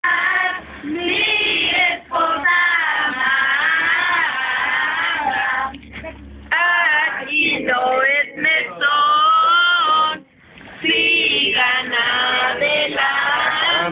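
A group of women, children and men singing together, a posada carol, sung in phrases with short breaks between them.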